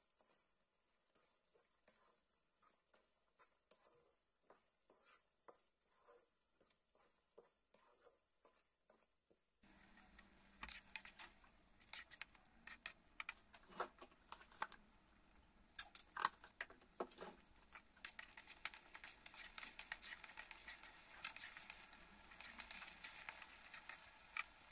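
A wooden spatula stirring mango pickle in a wok, with faint scraping strokes about twice a second. About ten seconds in the sound gets louder: the spatula knocks against the pan over a sizzle of bubbling oil that turns into a steady crackle.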